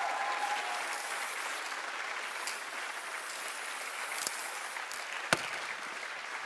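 Studio audience applauding, slowly dying down, with one sharp knock about five seconds in.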